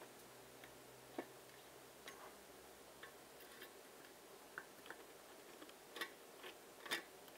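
Faint, irregular small clicks and ticks of a small screwdriver turning screws out of a little plastic LED controller case.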